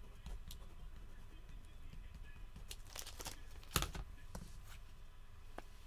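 Trading-card box and its wrapping being handled and opened: scattered light clicks and taps with faint rustling, one sharper click a little before the four-second mark.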